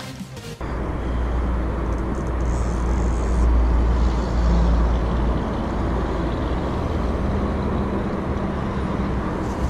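Wind buffeting the microphone: a steady low rumble with a broad rushing noise, beginning abruptly about half a second in.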